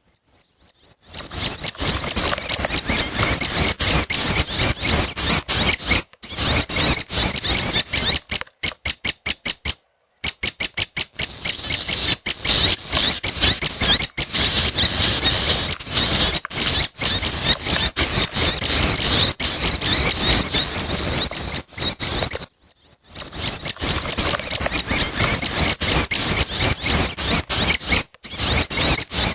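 Young red-headed prenjak giving fast, high-pitched chattering calls, almost without pause, breaking off briefly a few times into quick runs of separate ticking notes.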